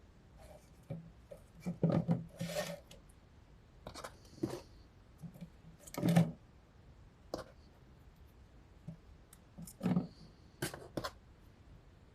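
Stretchy noodle fidget toys being handled and sorted: scattered brief rubs, scrapes and light knocks every second or two, with louder clusters near the start, the middle and near the end.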